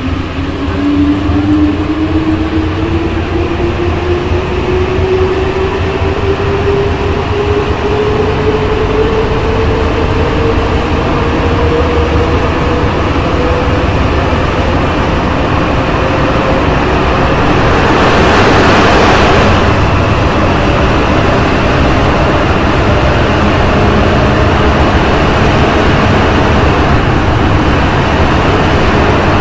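Santiago Metro NS-93 rubber-tyred train accelerating through a tunnel: a steady rumble with a motor whine that rises in pitch as it gathers speed, then levels off. About two-thirds through there is a brief, louder rush of noise.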